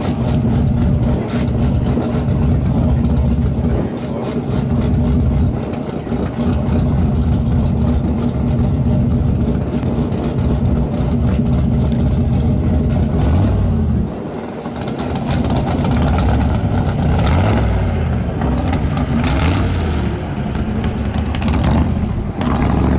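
Race vehicle engines running loudly in the salt-flat staging lane, with repeated revving from about halfway through that rises and falls in pitch.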